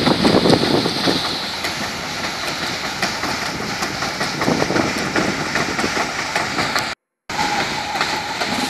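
Rice combine harvester running steadily while its unloading auger pours threshed grain into a bulk bag: a continuous mechanical din that cuts out for a moment about seven seconds in.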